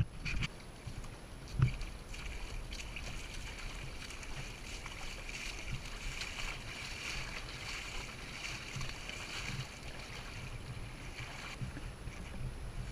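Seawater washing and lapping among large granite boulders, a steady hiss of moving water, with a single thump about a second and a half in.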